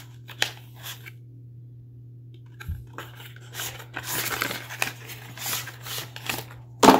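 A cardboard sleeve rustling and scraping as it is opened and a laptop power brick and coiled cord are slid out of it. A few light taps come in the first second, a soft thud just under three seconds in, and a louder knock at the very end. A steady low hum runs underneath.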